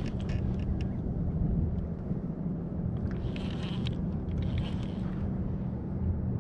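Steady low drone of a motorboat engine running, with short splashy water noises and clicks about three to five seconds in.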